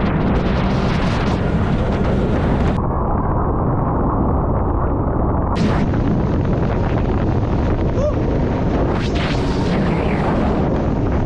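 Heavy wind buffeting the microphone with a steady rushing roar, as heard riding a jet ski at speed.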